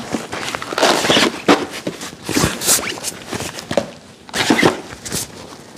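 Fabric backpack rustling and scuffing as plastic food containers are packed into it, with a few short sharp knocks and scrapes among the rustling.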